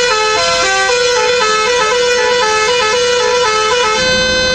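Electronic musical vehicle horn playing a tune of quick stepping notes, then holding one steady note about four seconds in.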